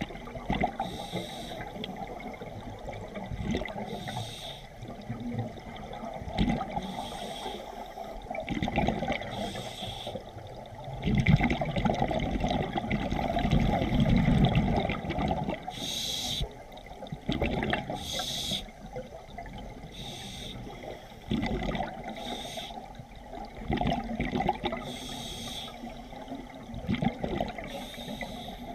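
Scuba diver breathing through a regulator underwater: short hissing inhalations every few seconds, each followed by a gurgling rush of exhaust bubbles. The longest and loudest bubbling comes near the middle.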